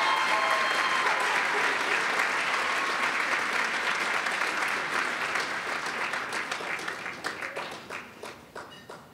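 Many hands applauding, with a few voices cheering in the first second; the clapping thins to scattered claps and fades out near the end.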